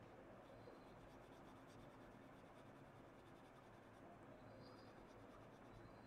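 Faint scratching of an oil pastel crayon being rubbed back and forth across drawing paper.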